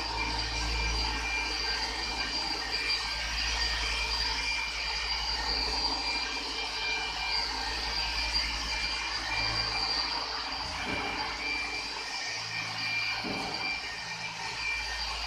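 Handheld car polisher with a foam pad running against painted bodywork: a steady high whine over a lower hum that fades and comes back a few times.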